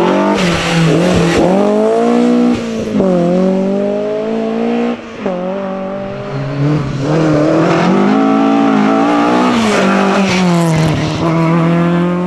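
Historic rally car engines at full throttle on a special stage, several cars in turn, each revving hard and falling back sharply several times at gear changes and braking.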